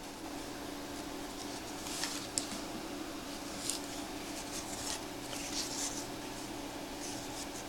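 Baseball trading cards slid and flipped through by hand, several faint soft swishes over a steady low room hum.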